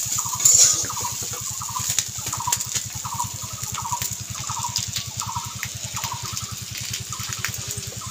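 A metal spatula scrapes against a steel kadai about half a second in. Under it runs a steady low hum, and short falling calls repeat about twice a second throughout.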